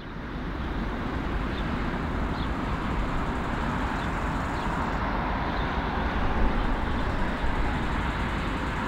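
Four CFM56 turbofan engines of an Airbus A340-300 running as the airliner rolls on the ground, a steady rumble and roar.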